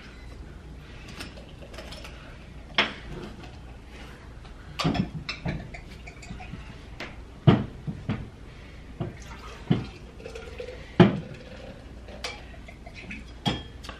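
Beer poured from a can into a glass mug and red wine poured from a bottle into a wine glass, the liquid filling quietly. Scattered sharp knocks and clinks of glassware and cans set down on the table, the loudest about seven and a half and eleven seconds in.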